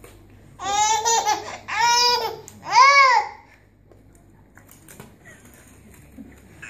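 Baby squealing: three loud, high-pitched squeals, each rising and falling in pitch, one after another in the first half, then quiet room sound.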